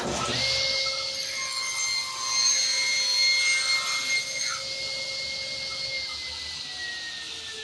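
Powermatic table saw starting up and running with a steady whine while slicing a thin segmented wooden ring held in a sled jig, louder during the cut. About six seconds in the motor is switched off and its whine slowly falls as the blade spins down.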